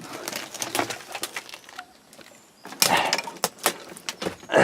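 Irregular scuffs, scrapes and knocks of someone moving over brick and rubble to squeeze into a narrow gap, loudest about three seconds in.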